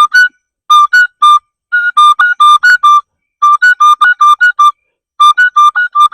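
Oja, the Igbo wooden notched flute, blown in short, sharp, high notes that flick back and forth between two pitches in quick runs with brief pauses between them: a beginner's open-and-close fingering exercise, one finger covering and uncovering a hole.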